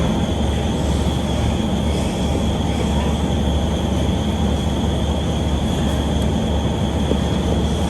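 Steady, loud mechanical drone: a constant low hum with a thin high whine above it, unchanging throughout.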